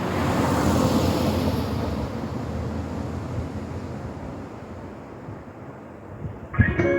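A vehicle passing by: a broad rushing noise that peaks about a second in and fades away. Near the end comes a thump as the outdoor public-address horn speakers switch on, and the bell-like tones of the municipal 5 p.m. chime begin.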